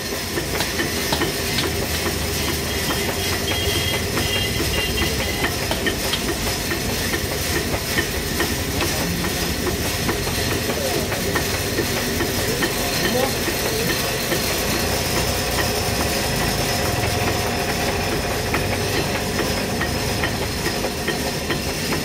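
Sawmill machinery running steadily, a continuous rattling clatter with a hiss over it, with faint voices of workers.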